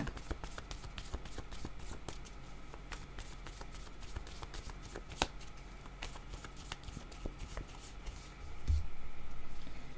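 A deck of oracle cards being shuffled by hand: a steady run of soft card flicks and rustles, louder for about a second near the end.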